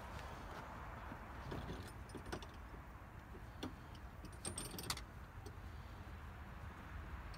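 A few light metallic clinks and jingles about halfway through, as the metal hardware on a tie-down strap is handled, over a low steady rumble.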